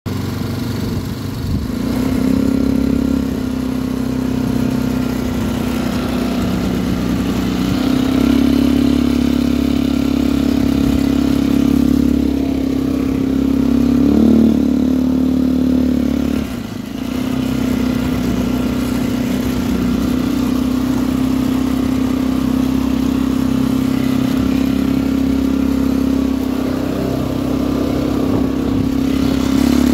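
Kuba Eland 200 quad bike's engine running while riding over a muddy dirt track, its steady note rising and falling slightly with the throttle and dropping briefly a little past halfway.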